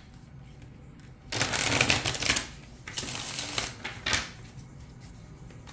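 A tarot deck being shuffled by hand: a rustle of cards for about a second, a softer second shuffle, then a single short tap.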